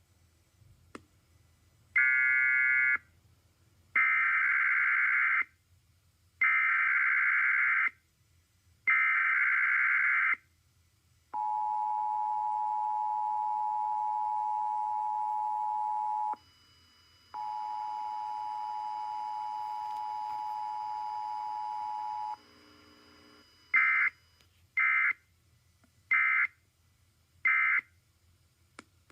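Emergency Alert System test signals: four screeching bursts of SAME digital header data, then the two-tone EAS attention signal held about five seconds, broken off for a second and sounded again. Four short data bursts near the end carry the end-of-message code.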